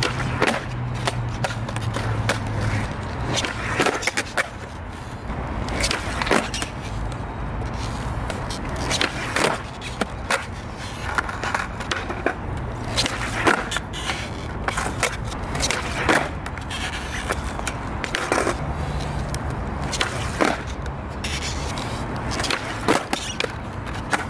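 Skateboard on concrete, the wheels rolling, with a dozen or so sharp cracks and clacks spread through: tail pops, the board flipping and slapping down, and landings from repeated laser flip (360 heelflip) attempts.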